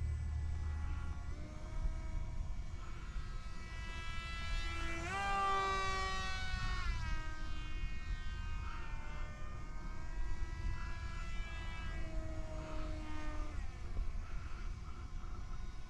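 Small electric RC foam plane's motor and propeller whining in flight. The pitch and loudness rise sharply about five seconds in and fall away about two seconds later, then shift again near the end as the throttle and the plane's distance change.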